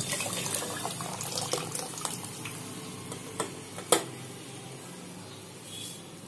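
Thick boiled toor dal poured into a metal pot of hot fried masala: a steady pour of liquid that fades away over the first few seconds. A few sharp knocks come through it; the loudest is about four seconds in.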